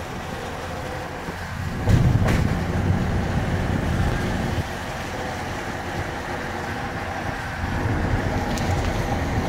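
Steady road noise from a moving car: a low rumble of tyres and engine, with a brief louder bump about two seconds in.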